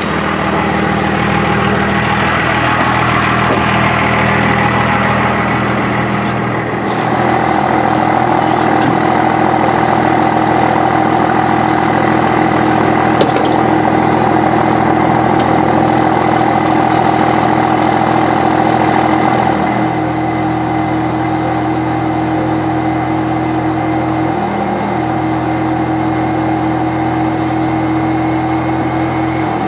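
1996 Dodge Ram's 12-valve Cummins diesel engine running steadily, its tone changing about seven seconds in and again around twenty seconds.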